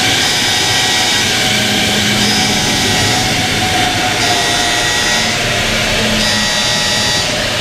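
Steady loud machinery noise with several high whining tones that come and go.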